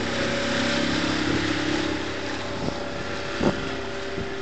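Small outboard motor on an inflatable dinghy running at speed, its engine note shifting a little, over wind and water noise.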